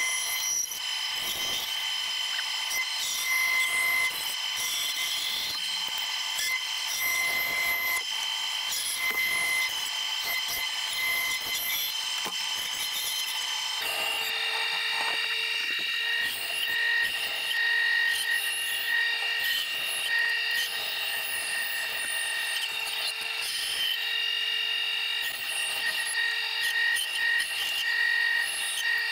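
Bandsaw running and cutting MDF: a steady motor and blade hum with a rasping, scraping sound as the board is fed through the blade. The sound changes abruptly about halfway through.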